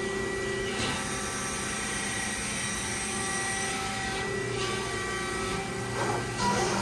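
Accurl Euro Pro CNC hydraulic press brake running: a steady hydraulic pump hum with several held tones. Some tones switch off and on again about a second in and near four and a half seconds. There are short hissing rushes about a second in and again about six seconds in.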